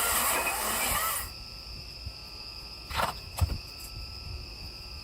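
Wild Badger cordless chainsaw running under load, then its motor cuts off about a second in. A steady, high-pitched whine is left behind, with two short sounds near the middle.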